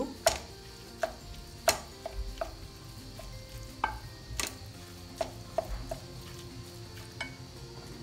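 Wooden spoon stirring a shredded vegetable and seafood filling in a glass bowl, knocking against the glass now and then, with faint background music.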